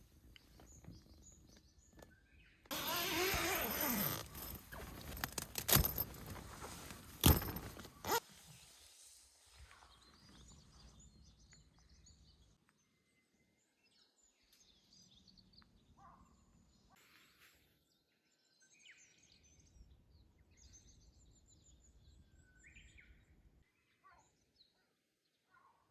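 A burst of noise about three seconds in, then a few sharp knocks. After that, outdoor quiet with faint scattered bird chirps.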